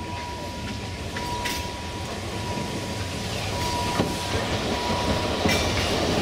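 Narrow-gauge steam locomotive 99 1734-5 rolling slowly towards the listener, getting steadily louder as it approaches, with a few sharp clicks from its wheels on the track.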